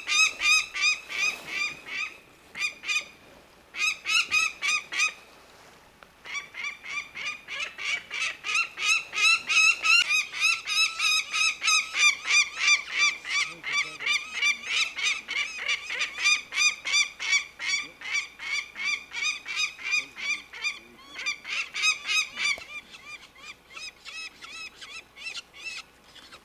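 Peregrine falcon giving its harsh, repeated 'kak-kak-kak' alarm call, about three to four calls a second, in long runs with a couple of short breaks: the adult defending its nest as people climb up to it.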